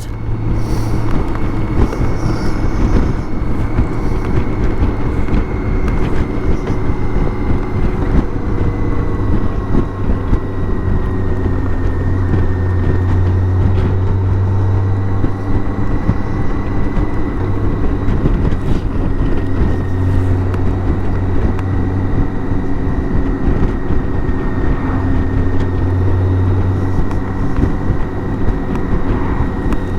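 BMW K1600 GTL motorcycle's inline-six engine running steadily under way, with road noise, heard from the bike while riding at an even pace with no revving.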